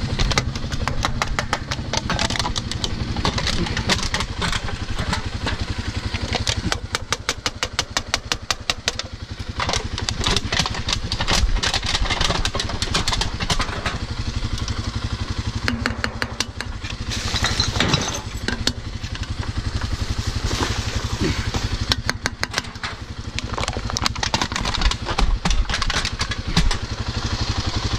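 Kawasaki dirt bike engine running steadily as the bike is ridden along.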